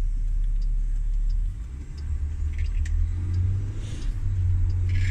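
Low rumble of a car driving, heard from inside the cabin; the rumble shifts up in pitch about a second and a half in.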